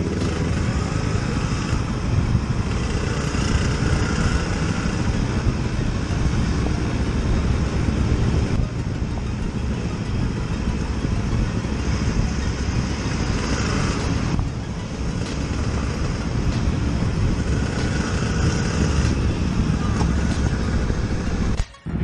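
On-board sound of a Yamaha RXZ 135 two-stroke motorcycle being ridden: engine running under wind rush on the microphone. The sound changes abruptly twice and drops out briefly near the end, at cuts between clips.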